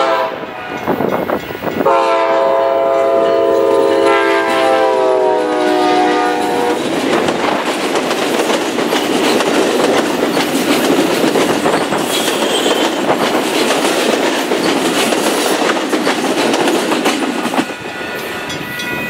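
Amtrak P42DC locomotive horn sounding one long blast of about five seconds, its pitch dipping slightly near the end as the engine passes. Then bilevel Superliner passenger cars roll by with a steady rumble and clickety-clack of wheels over the rail joints, which drops off near the end as the last car clears.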